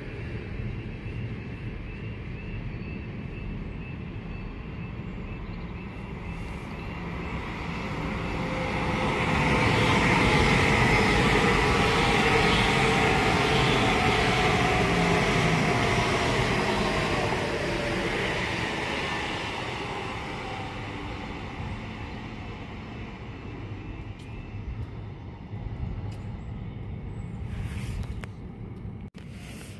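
A train passing on the main line: its sound builds from about eight seconds in, stays loud for several seconds with a whine falling in pitch, then fades away over a steady low background rumble.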